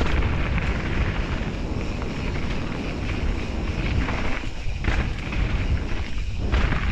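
Wind buffeting an action camera's microphone during a fast mountain bike descent, over the rumble and crunch of tyres on a gravel dirt trail and small rattles from the bike. The noise eases briefly twice in the second half.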